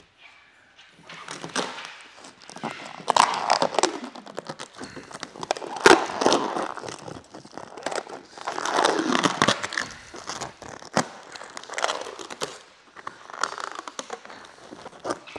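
Clear paint protection film being peeled by hand off a painted truck hood and bunched up, crackling and crinkling unevenly with sharp snaps, the loudest snap about six seconds in.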